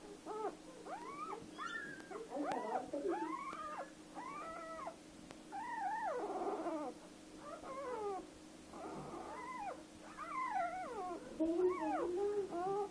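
Newborn Spanish Water Dog puppy crying over and over in short, high-pitched squeals that rise and fall, about one or two a second, while a cotton swab is worked at its paw for tactile stimulation.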